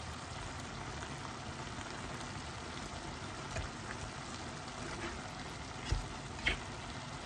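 Diced chicken and vegetables simmering and sizzling gently in their own juices in a frying pan, a steady bubbling hiss. A few soft knocks of the slotted spatula against the pan as the food is stirred, the last two close together near the end.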